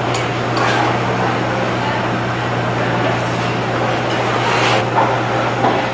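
A steady machine whir with a low hum running under everything, with a few light clicks of metal chopsticks against a ceramic bowl.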